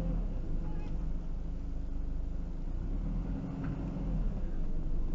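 Motorhome's diesel engine idling while the van stands still, a steady low rumble heard from inside the cab.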